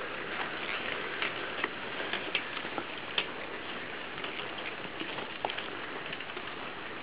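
Mountain bikes riding over a dirt forest trail: a steady crunching hiss of knobbly tyres on gravel and twigs, with scattered small clicks and crackles from the drivetrains and debris.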